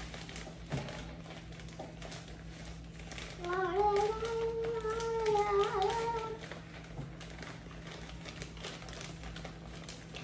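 A voice humming a short tune for about three seconds in the middle, the loudest sound here, over soft crinkling of a brown sugar bag being handled.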